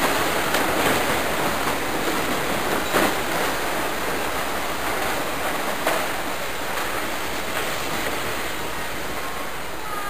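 Steady rushing noise, with a few sharp clicks as the ignition lock cylinder is pushed into its housing on the steering column; the clearest clicks come about three seconds in and near six seconds.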